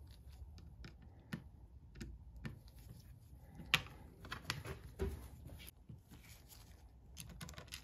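Light clicks and taps of small metal bicycle derailleur parts being handled: the rear derailleur's pulley cage and jockey wheels, bolts and washers picked up and set down on a cutting mat. The sharpest click comes a little before four seconds in.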